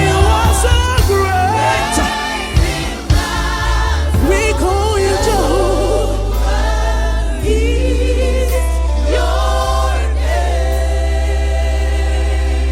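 Gospel choir singing a worship song over a band with a deep sustained bass; the voices hold longer notes in the second half.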